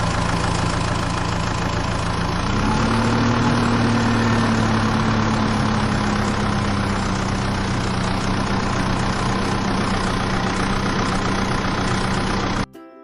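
An engine running steadily. About two and a half seconds in it picks up in pitch, then slowly settles back, and it cuts off suddenly near the end.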